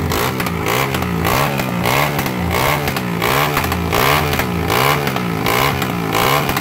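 Motorcycle engine revved up and down again and again, about twice a second, loud and steady throughout.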